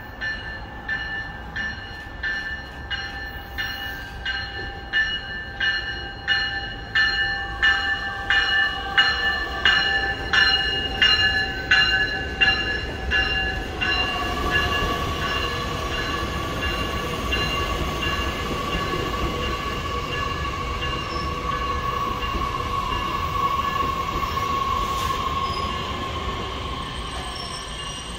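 Metra Electric bilevel electric multiple-unit train pulling into the station. Its bell rings about twice a second for the first half, over a whine that falls in pitch as the train slows. After that the rumble of the cars rolling past carries a steady high wheel squeal.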